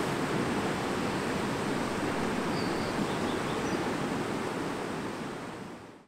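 Shallow river water rushing over rocks, a steady hiss that fades out in the last second.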